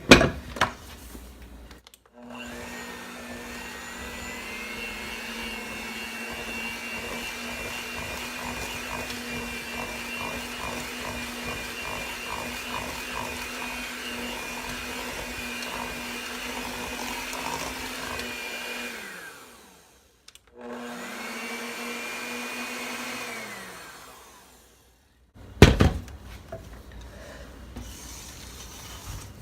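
Electric mixer running steadily in a bowl of bread batter for about seventeen seconds, then winding down as it is switched off. It runs again for a few seconds and winds down once more. A sharp knock of utensils against the bowl comes at the start and again near the end.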